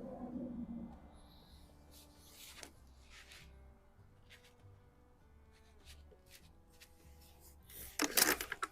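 Faint clicks and rubbing of an underlever air rifle being handled and reloaded between shots, with a louder burst of scraping noise about eight seconds in.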